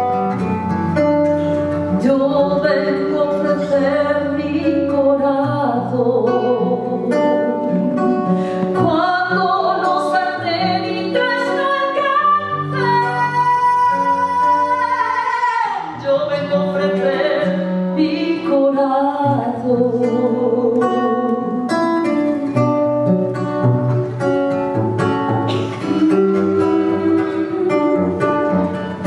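A woman singing a song live with acoustic guitar accompaniment. About halfway through she holds one long high note that stops sharply, and the guitar plays on under the melody.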